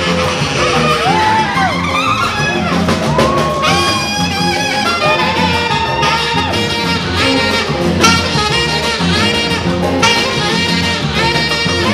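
Live band playing a jazzy instrumental groove: a saxophone playing lead lines over electric guitar, bass guitar, hand drum and drum kit.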